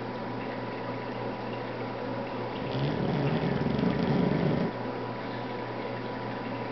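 Sleeping bulldog snoring loudly: one long snore of about two seconds, starting near the middle, over a steady hum.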